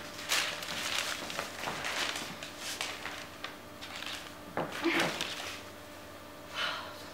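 Newspaper sheets rustling and crinkling as they are waved, grabbed and tugged. A short pitched voice sound, gliding in pitch, cuts in about five seconds in.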